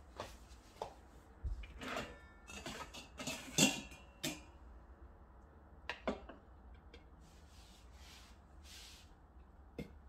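Light clicks, knocks and rustles of hands working in a plastic automatic sprout grower and pulling out bean sprouts. They are busiest in the first four seconds, with a few more around six seconds and one near the end.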